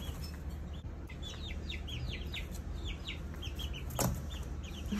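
Young chicks, a few weeks old, peeping over and over: a run of short, high chirps that fall in pitch. A single sharp knock comes about four seconds in.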